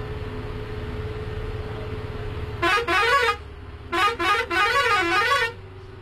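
Bus melody air horn playing a warbling, up-and-down tune in two loud bursts, the first about two and a half seconds in and the second, longer one about a second later, over the steady drone of the bus running.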